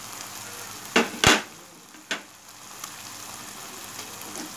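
Onion-and-spice masala paste sizzling steadily in oil in a frying pan. Three sharp knocks come about a second, a second and a quarter, and two seconds in.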